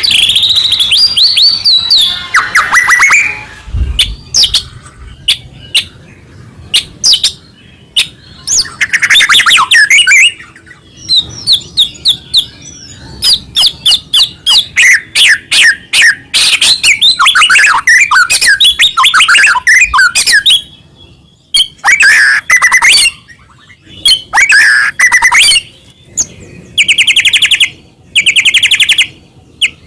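White-rumped shama (murai batu) in loud full song: phrases of rapid, varied whistles and chattering notes with short pauses between them, and two fast, even trills near the end.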